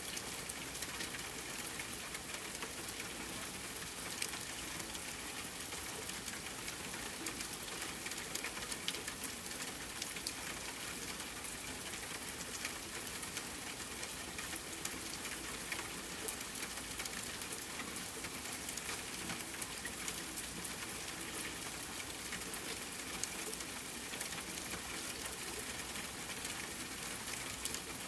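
Steady rain falling: an even hiss packed with many small drop ticks, with one sharper drop about halfway through.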